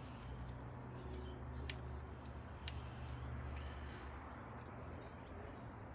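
Household scissors snipping through Sarracenia pitcher-plant flower stalks: a few short, sharp clicks, the clearest about a second and a half in, over a faint steady low hum.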